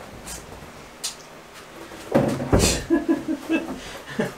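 Thin plastic tub surround panel being handled and flexed against the wall: a single click about a second in, then knocking and scraping of the panel over the second half.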